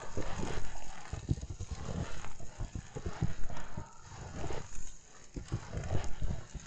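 Footsteps crunching through fresh snow at a walking pace, one crunch after another.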